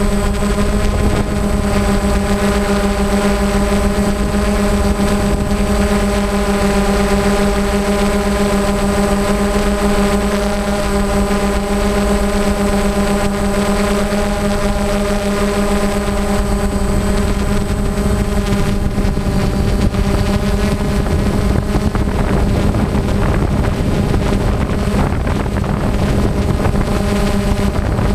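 Multirotor camera drone's motors and propellers humming steadily at an even pitch, heard from the drone's own microphone, with some wind rumble on the microphone.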